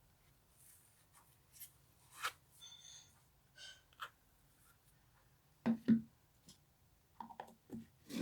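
Slime handled by hand: irregular soft squishes, sticky clicks and rustles, with two heavier squelches about six seconds in.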